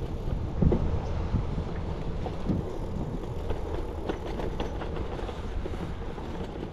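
Bicycle rolling along a paved path: a steady low rumble of tyres and air on the microphone, with several knocks and rattles as the bike goes over bumps in the surface, the loudest within the first second.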